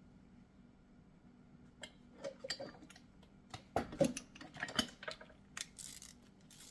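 Irregular metallic clicks, clinks and knocks of brake caliper hardware, the greased slide pins and bolts, being handled and fitted, starting about two seconds in and busiest near the middle.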